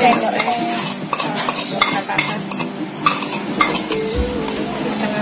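Metal fork scraping and tapping against a plastic plate, pushing seasoning powder off it into a plastic mixing bowl, in quick, irregular strokes.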